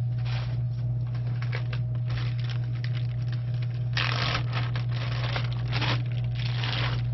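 Rustling, then a plastic Ziploc food bag crinkling as it is handled and opened, loudest about four to six seconds in, over a steady low hum.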